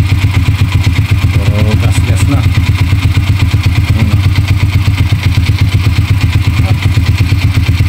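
Vperman 150 motorcycle's air-cooled single-cylinder engine idling steadily with a fast, even beat. It is running after a top overhaul with a new piston kit and rings.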